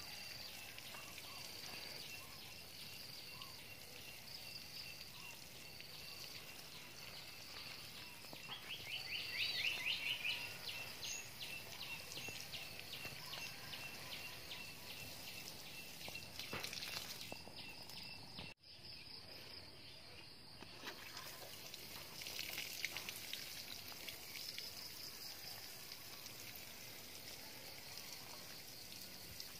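Insects chirping in steady repeating pulses, with a louder run of chirps about nine seconds in. Under it, the spray from a watering can's rose patters on the soil.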